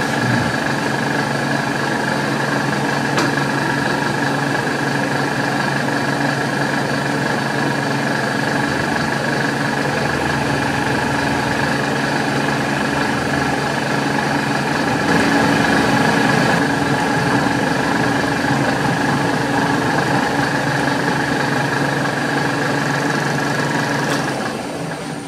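Milling machine cutting a keyway slot in a steel shaft with an end mill: the spindle and its drive run with a steady whine and hum over the noise of the cut. The machine is switched off and runs down near the end.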